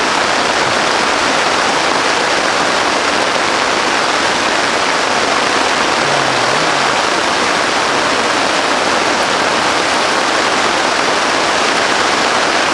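Heavy rain falling, a steady dense rush with no break.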